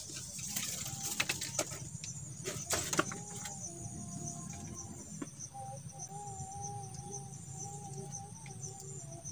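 Outdoor lakeside ambience: insects chirping in short high repeated pulses over a steady low background noise, with a few sharp clicks or knocks in the first three seconds and a faint wavering hum through the middle.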